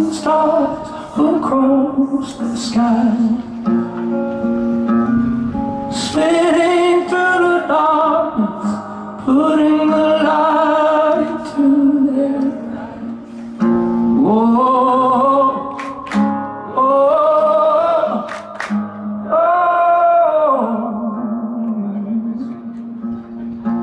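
Live rock song: a male singer holds long, wavering sung notes over acoustic guitar.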